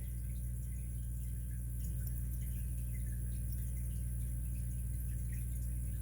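Steady low electrical hum, with faint, scattered small clicks of a padlock and its key being handled.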